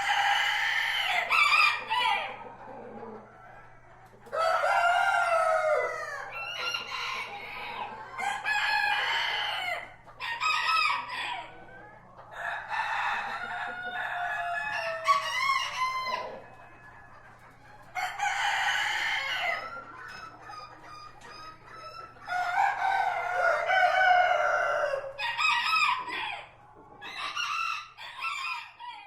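Several roosters crowing one after another and sometimes over each other, about a dozen calls, with hens clucking between the crows.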